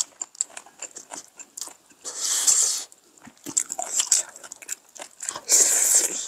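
Close-up eating sounds from two people: biting and chewing through clip-on microphones, with two louder, noisy mouthfuls of about a second each, one about two seconds in and one near the end.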